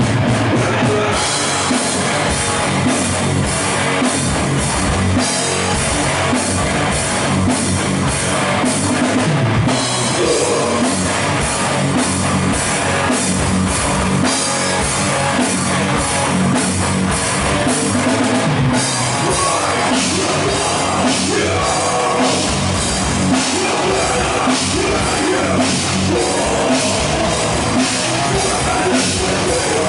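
Heavy metal band playing live: distorted electric guitars over a steady, driving drum beat with cymbals.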